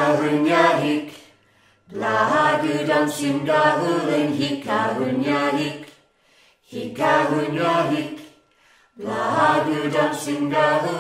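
Unaccompanied singing, sung in phrases a few seconds long with short breaths of quiet between them.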